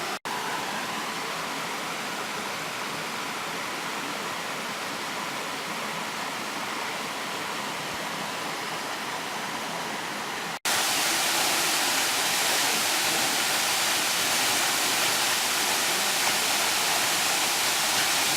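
Steady rush of a waterfall, breaking off for a moment just after the start and again about ten seconds in; after the second break the rush is louder and brighter.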